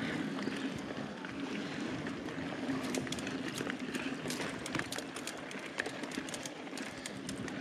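Mountain bike rolling fast down a dirt forest singletrack: steady tyre and riding noise with a low hum, broken by many sharp rattles and clicks from the bike jolting over bumps, thickest about three to five seconds in.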